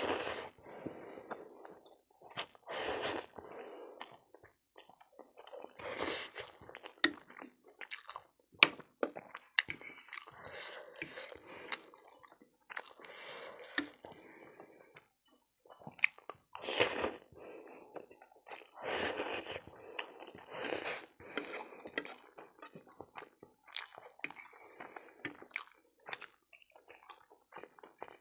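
Close-up eating sounds from a plate of spicy pork keema noodles: loud slurps every few seconds, with wet chewing between them and sharp clicks, likely the fork on the plate.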